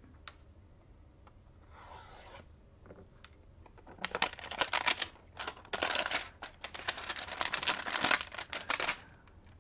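Clear plastic wrapper around a stack of trading cards being torn open and crumpled: a dense run of crinkling and crackling from about four seconds in until shortly before the end. Before it there is only a faint rustle of cardboard and a small tap.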